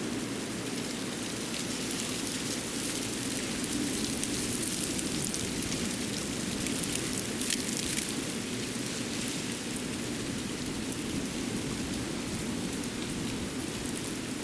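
Winter forest ambience: a steady, even hiss with fine, light pattering ticks, a little stronger a few seconds in.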